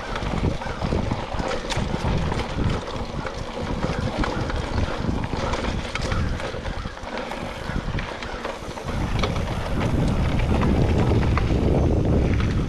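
Mountain bike rolling over dirt singletrack, with tyre noise and sharp rattles and clicks from the bike over rough ground, under wind buffeting the action camera's microphone. The wind noise grows louder about nine seconds in as the bike speeds up.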